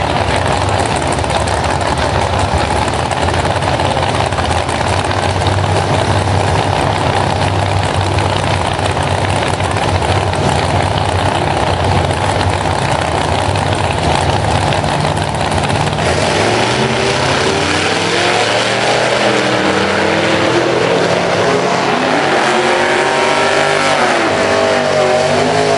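Gasser drag cars' engines running loud and rough at the start line. About two-thirds of the way in they rev hard, rising in pitch again and again with drops between. Near the end a red gasser spins its tyres in a smoky burnout.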